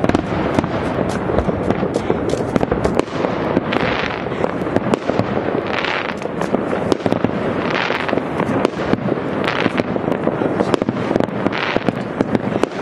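Aerial fireworks going off in a dense, continuous crackle of many small bangs, with a louder rushing hiss that recurs about every two seconds.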